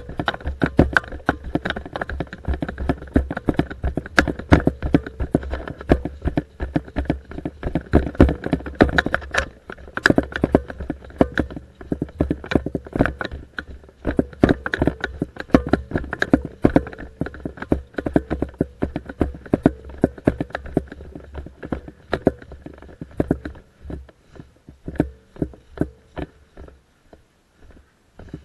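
Footsteps of people walking briskly over dry grass and pine-needle-covered ground: a quick, uneven patter of steps over a low rumble, thinning out near the end.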